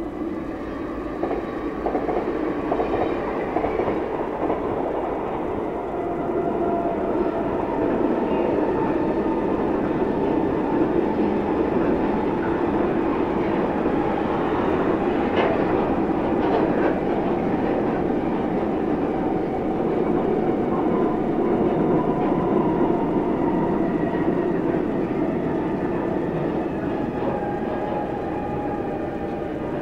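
A double-deck electric intercity passes, then a long freight train of empty grain hopper wagons rolls by. Its wheels make a steady, continuous rolling noise on the rails.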